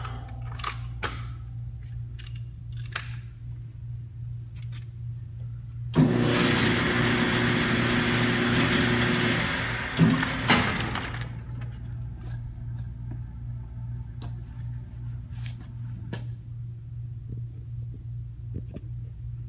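Electric target carrier motor running for about four seconds as it brings the paper target back up the lane, ending in a sharp clunk as the carrier stops at the booth. A steady low hum and scattered small clicks and knocks sit underneath.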